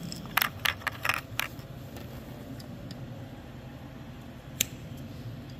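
Clicks and clacks of a red-handled hand tool being handled and worked at the wiring of a Thermo King condenser fan motor: a quick run of five or six about half a second in, then one sharp click near the end. A low steady hum runs underneath.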